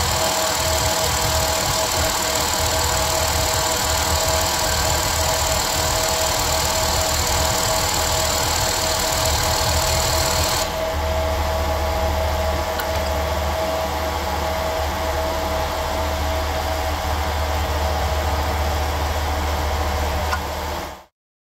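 Hydraulic press pump and motor running steadily while the ram crushes tin cans. About ten seconds in, its high whine drops away and a lower hum takes over. It stops abruptly just before the end.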